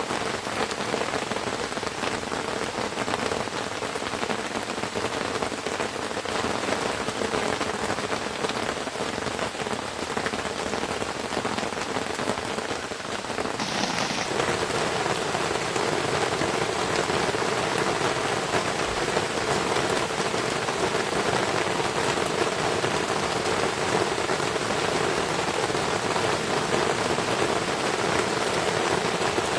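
Heavy rain falling steadily, an even hiss of rain on surfaces that shifts slightly in tone about halfway through.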